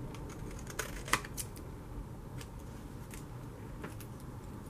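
Scissors snipping through cardstock, trimming excess paper off a card front: a few short, sharp snips in the first second and a half, the loudest about a second in, then fainter scattered clicks and paper handling.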